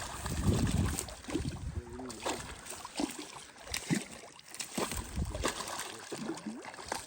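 Water sloshing and splashing, with scattered knocks and a low rumble about half a second in.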